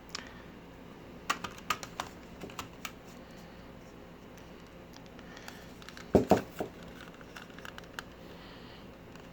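Hard Arkansas oilstone being handled: scattered light clicks and taps, then two louder knocks about six seconds in, and a few small ticks after.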